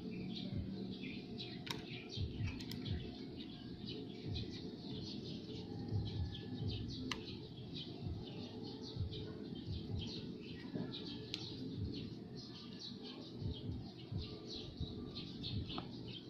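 Small birds chirping again and again in the background, with a few sharp clicks scattered through.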